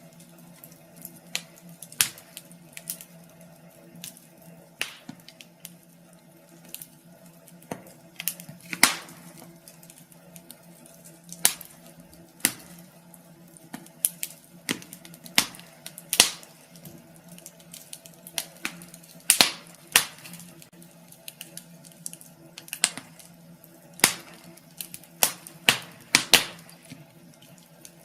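Wood fire crackling in a fireplace: irregular sharp pops and snaps, several a second, with a few much louder cracks scattered through, over a steady low background.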